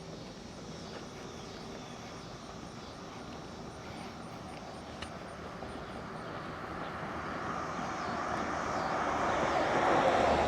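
A vehicle passing by: a rushing noise that grows steadily louder and peaks near the end. Faint insect chirps pulse high and regular, about three a second.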